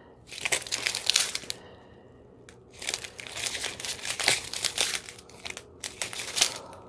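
Small plastic bags of diamond painting drills crinkling and rustling as they are handled, in two bouts with a short pause between.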